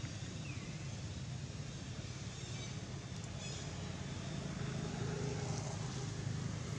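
Steady low rumble with a hiss over it, the outdoor background noise, growing slightly louder near the end, with a few faint high chirps.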